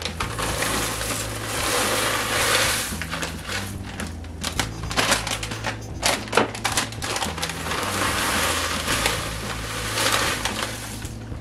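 Plastic bag crinkling as dried sorrel (hibiscus sepals) is shaken out of it into a pot of boiling water, the dry flakes rustling and crackling as they pour, with scattered sharp crinkles throughout.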